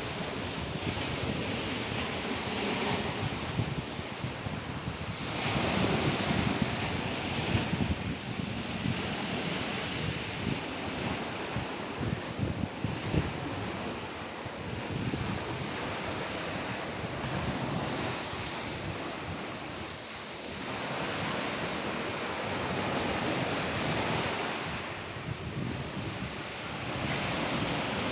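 Black Sea surf washing onto the shore, the rush of water swelling and falling back wave after wave.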